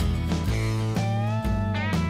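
Background country-blues music led by guitar over a steady bass line, with notes that slide down in pitch in the second half.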